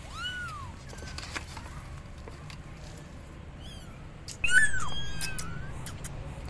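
Kittens meowing, high-pitched calls for their mother: one meow right at the start, a faint one partway through, and a louder, longer one about four and a half seconds in. A few light clicks and taps fall between the calls.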